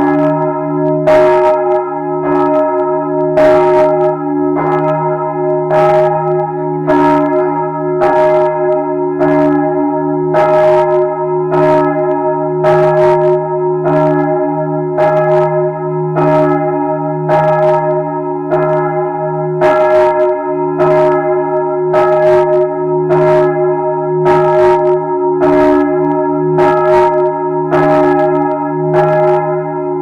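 Large church bell ringing at close range, very loud, with a stroke about once a second over its steady ringing tone.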